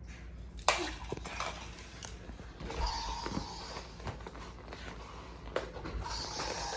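Handling of a battery-powered plastic toy with its battery cover off: a few scattered sharp clicks and light knocks.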